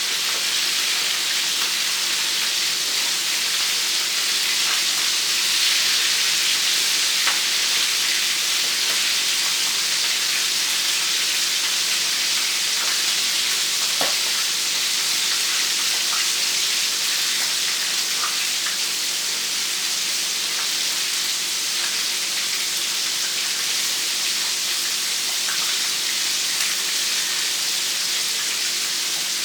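Flour-coated chicken pieces deep-frying in hot canola oil, a steady sizzle with an occasional faint click.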